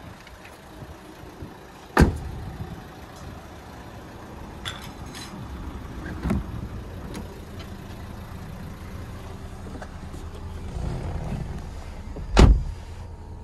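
Renault Laguna doors being shut: a sharp thud about two seconds in, a lighter knock around six seconds, and the loudest thud near the end, over a steady low rumble.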